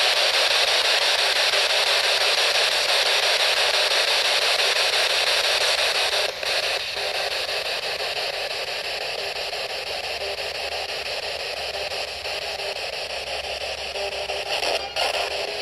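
Steady hiss of radio static, fairly loud, with a brief dip about six seconds in and a slightly lower level after it.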